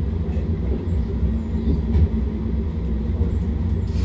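Metrolink tram running, heard from inside the passenger car: a steady low rumble of motors and wheels on the rails.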